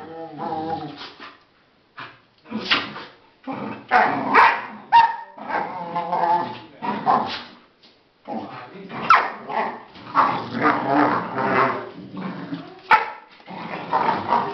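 Two Australian kelpies play-fighting, growling and barking at each other in rough bursts with a few brief pauses.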